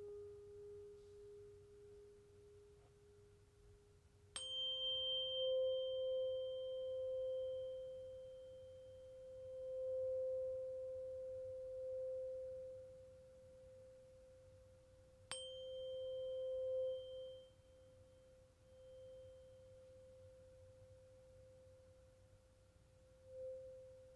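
Tuning fork struck twice, about four seconds in and again about fifteen seconds in. Each strike gives a brief high clang over a pure, steady tone that rings on for many seconds, swelling and fading in loudness. Before the first strike, a lower ringing tone from the previous strike dies away.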